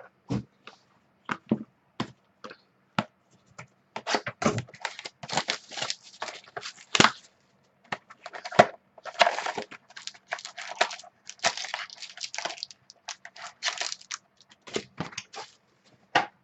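Plastic wrapping crinkling and tearing, with cardboard handling, as a sealed box of trading cards is opened. It starts with scattered clicks and taps, and about four seconds in becomes a dense, irregular crackle.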